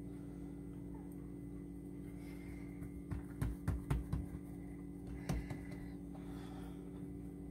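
Soft knocks and taps of a tart pan being handled on a countertop as pastry dough is pressed into it by hand: a cluster about three to four seconds in and one more a little after five seconds, over a steady low hum.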